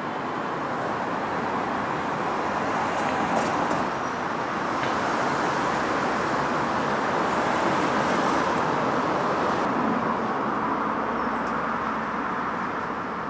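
Road traffic on a city street: the rushing noise of passing cars, swelling gently and fading near the end, with a short high squeak about four seconds in.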